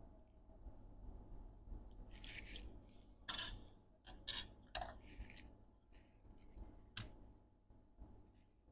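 A sharp metal tool scraping and picking the edge-bonding glue from around the SMC chip on a MacBook Air logic board: a handful of short, sharp scrapes and clicks, the loudest about three seconds in.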